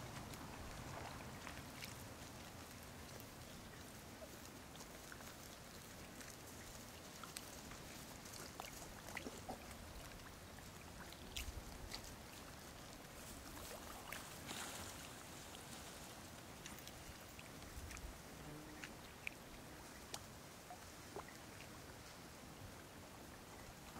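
A Japanese macaque sitting in shallow pond water, stirring it with its hands as it forages: faint small splashes and drips scattered throughout, over a steady low hiss.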